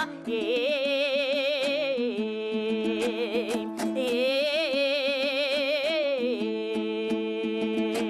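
Kazakh terme singing accompanied by a strummed dombra. The singer holds two long, wavering notes with wide vibrato, over a steady drone and a regular strumming rhythm.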